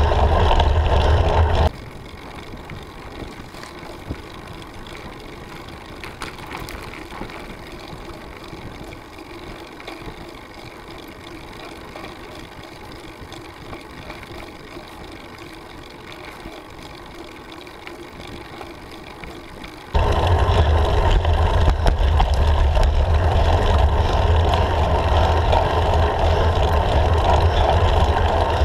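Wind buffeting and road rumble on a handlebar-mounted camera on a road bike climbing. Just under two seconds in it drops abruptly to a much quieter, steady low background, and about twenty seconds in the loud rumble returns just as abruptly.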